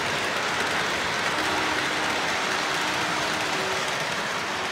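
O scale model freight cars rolling past on metal track, a steady rushing clatter of wheels on rails.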